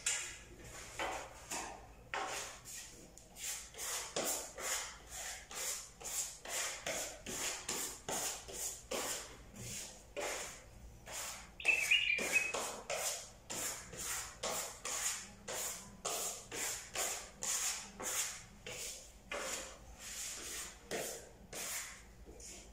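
A flat hand tool scraping and rubbing over a plastered wall in short repeated strokes, about two a second, with a brief squeak about twelve seconds in.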